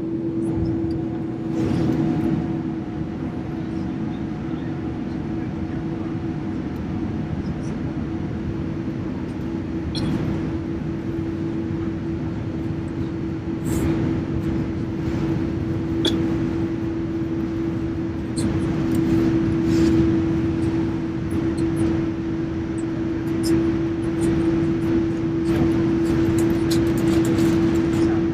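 Boeing 787 turbofan engines idling on the ground after start, heard from inside the aircraft as a steady hum with one constant tone. A few light clicks sound now and then.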